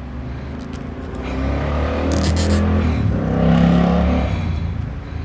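A motor vehicle driving past, its engine sound swelling and then fading, with a brief hiss about two seconds in.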